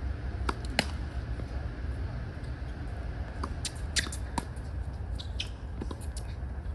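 Tennis ball struck by rackets and bouncing on a hard court during a rally: a run of sharp pops at uneven spacing, the loudest about four seconds in, over a steady low rumble.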